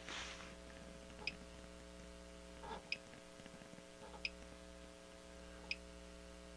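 Faint, evenly spaced ticks, about one every second and a half, over a low steady hum.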